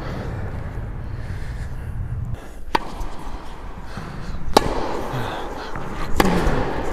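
Tennis ball being struck and bouncing on an indoor court: three sharp pops, roughly a second and a half apart, each ringing briefly in the hall.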